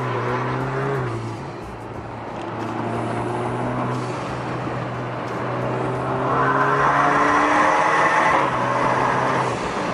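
Alfa Romeo's four-cylinder engine, muffler and resonator deleted, heard from inside the cabin as the car accelerates. The note climbs and drops a step about a second in and again about seven seconds in as the gearbox shifts up. A louder rush of noise comes from about six to nine seconds.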